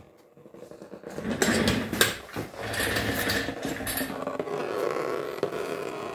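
Two sharp knocks about a second and a half and two seconds in, then engine oil pouring steadily into a plastic drain pan.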